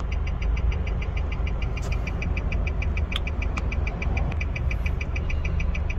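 Car engine idling at a standstill, heard as a steady low hum inside the cabin, with the turn-signal indicator ticking evenly several times a second for a left turn.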